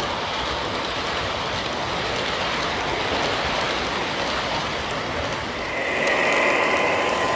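O gauge model passenger cars rolling past on the track: a steady rushing noise of wheels on rails. About six seconds in the sound changes, with a higher hiss and a faint steady tone joining in.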